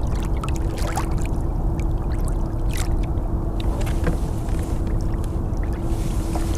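Newport Vessels NK-180S electric kayak motor running with a steady hum, under a dense rush of water along the hull and wind on the microphone, with scattered light splashes.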